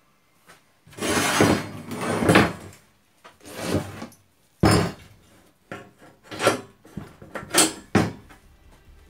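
A small rubber-tyred wheel and a steel-tube frame being handled on a wooden workbench while the wheel is fitted onto an axle: a longer scraping rustle about a second in, then a series of sharp knocks and clinks.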